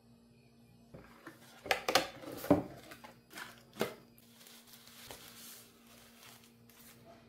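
Packaging being handled as a microphone is unboxed: sharp knocks and clacks of cardboard and the boxed microphone from about two seconds in, one more near four seconds, then a soft rustle of its plastic wrapping being pulled off.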